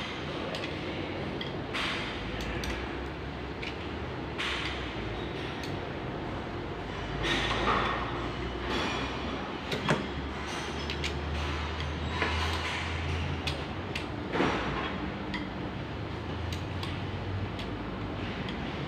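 Scattered clanks and scrapes of metal tools and engine parts being handled, over a steady low hum.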